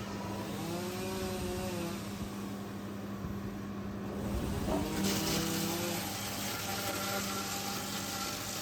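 Wood chipper running, its engine humming steadily under a whine that rises and falls twice, with a hiss that grows louder about five seconds in.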